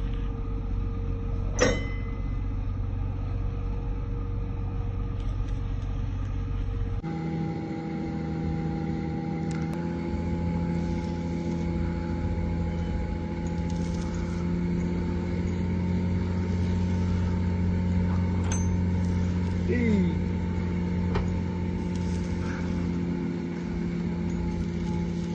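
Heavy machinery running steadily: a low hum with several held tones, which shift abruptly about seven seconds in, and a few short sharp clicks.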